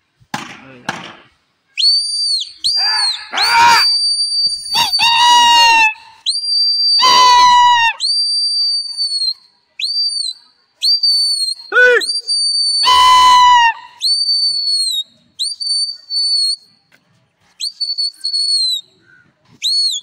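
A pigeon flyer's loud, shrill human whistles, repeated over and over, each a high held note that starts with a quick upward scoop. A few high shouted calls sound between them. These are the whistles and cries used to drive a flying pigeon flock on and keep it in the air.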